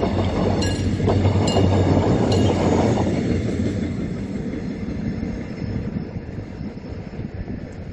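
Diesel-hauled Mugunghwa passenger train passing over a level crossing: a rolling rumble with a steady diesel engine drone and wheel clacks just under a second apart. It fades away after about three seconds as the last car goes by.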